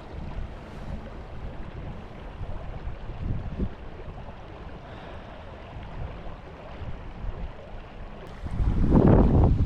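Wind buffeting the microphone in low rumbling gusts, with a much louder rush of wind about eight and a half seconds in.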